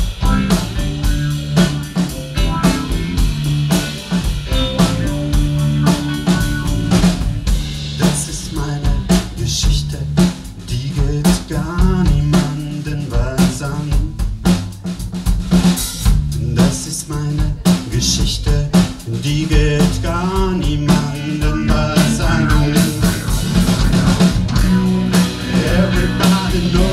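Live rock band playing: drum kit with rimshots and snare hits under electric guitars, with a man singing into the microphone in the later part.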